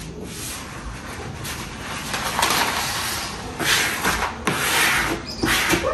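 Self-adhesive vinyl sheet being worked over a countertop: repeated rubbing strokes of hand or film against the surface, growing louder with two long sweeps in the second half.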